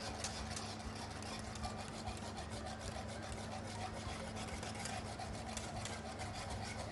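Wire whisk scraping and rattling against the inside of a pot as it beats a milk, starch and sugar mixture, in quick, even strokes.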